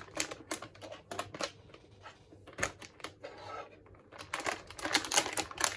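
Typing on a Royal Kludge RK61 mechanical keyboard fitted with Gateron Yellow linear switches: irregular key clacks, then a quick flurry of them near the end.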